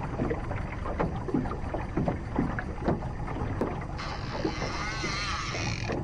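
Small waves slapping and knocking against the hull of an aluminum fishing boat over a steady low wind rumble. From about four seconds in, a high whirring with a wavering pitch joins.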